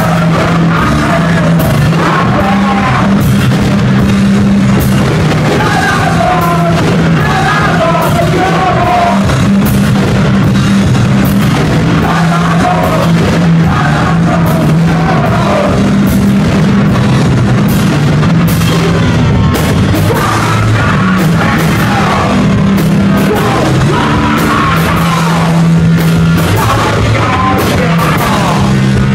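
Loud live heavy rock band playing: constant drum hits, a heavy bass line and distorted guitars, with vocals.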